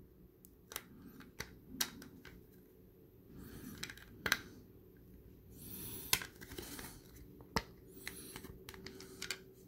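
Hard plastic pieces clicking and tapping against each other as a PVC figure's foot is tried on the pegs of its plastic display base, with a dozen or so separate clicks and a few brief rustles of handling.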